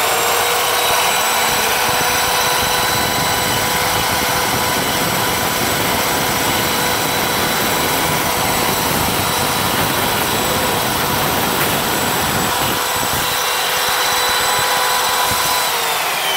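Parkside PKS 1500 A2 mitre saw's 1500 W motor running at full speed with a steady whine while the blade cuts through a piece of wood, then spinning down near the end.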